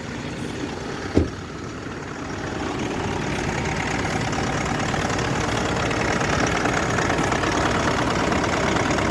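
Mitsubishi Triton's 4N15 four-cylinder diesel engine idling with the AC switched on, heard from the open engine bay, with one sharp click about a second in, after which the running noise grows louder over a couple of seconds and then holds steady. The auxiliary condenser fan makes no sound of its own: its motor has failed, which the mechanic puts down to carbon build-up and worn brushes.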